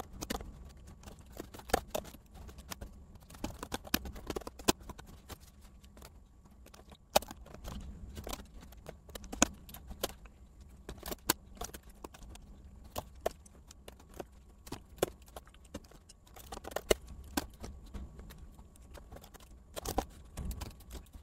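Typing on a computer keyboard: a run of irregular key clicks, with a short pause about six seconds in.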